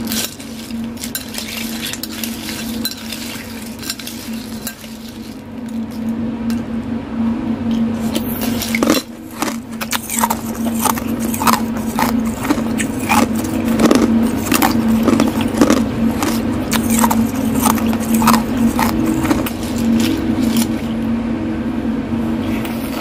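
Metal spoon stirring and scooping through ice cubes in a ceramic bowl: ice clinking against the spoon and bowl in many sharp clicks, busier in the second half. A steady low hum runs underneath.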